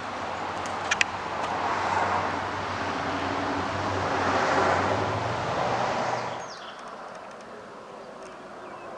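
Vehicle passing on a nearby highway, its engine and tyre noise swelling and then fading away about six and a half seconds in. A sharp double click sounds about a second in, and faint bird chirps follow once the vehicle has gone.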